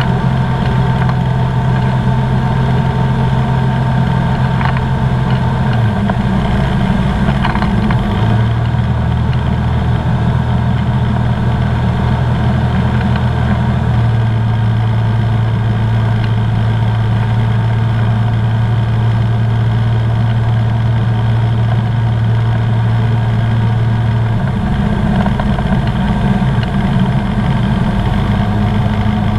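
Comco Ikarus C42B ultralight's engine and propeller droning, heard inside the open-sided cockpit with airflow noise. The drone shifts pitch in steps a few times, about a fifth of the way in, around halfway and again near the end, as the engine power changes.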